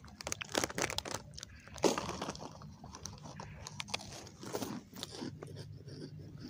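A person crunching and chewing crisp food close to the microphone, in irregular sharp crunches, the loudest about two seconds in.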